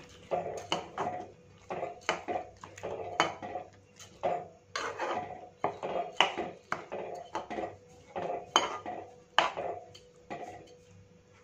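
A metal spoon stirring rice into a thick masala in a pressure cooker pot, scraping and clinking against the pot's sides and base in irregular strokes about once or twice a second.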